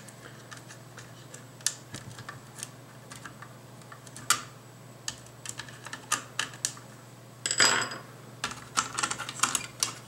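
Scattered small clicks and taps of hands undoing a screw and handling the metal drive bracket inside an opened mini PC case, with a louder, longer scrape about seven and a half seconds in.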